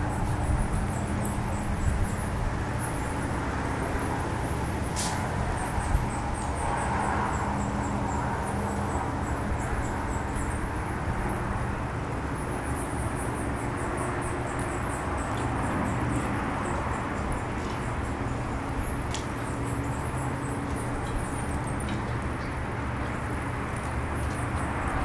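Bats chattering in their roost: faint, rapid, high-pitched squeaks repeating over a steady low background hum.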